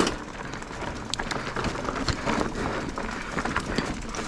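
Mountain bike rolling over rocky dirt trail: tyres crunching on loose rock and gravel, with frequent clicks and knocks from the bike rattling over the rough ground.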